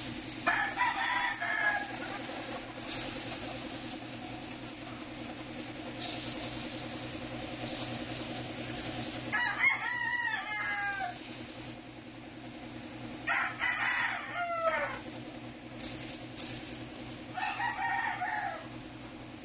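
A rooster crowing four times, each crow a long call that falls away at the end, over a steady low hum and some short bursts of hissing.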